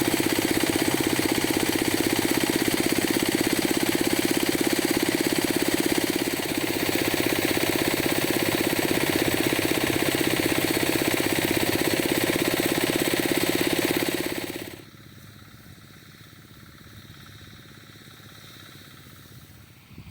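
Engine of a small rice combine harvester running steadily with a fast, even pulsing beat. About three-quarters of the way through the engine sound drops away abruptly, leaving only a faint steady background noise.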